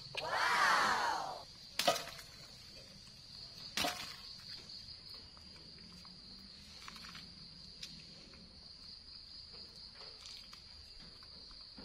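A steady high insect drone, with a loud pitched cry that arches up and falls back over about a second and a half near the start, then two sharp knocks about two and four seconds in.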